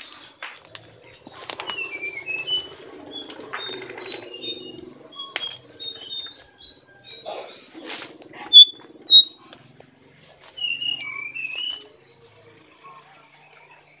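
Wild birds chirping in quick, short high notes, with two loud sharp calls about nine seconds in. Leaves and twigs rustle and snap as someone pushes through dense undergrowth.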